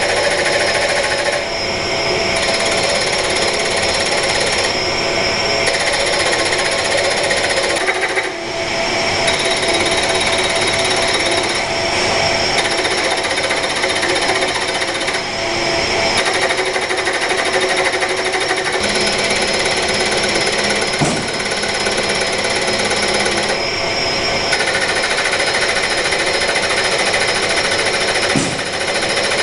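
Two CKD Nikki Denso τDISC ND140 direct drive servo motors swinging arms through rapid high-speed positioning moves: a loud, dense mechanical rattle with a steady whine. The pattern changes every few seconds.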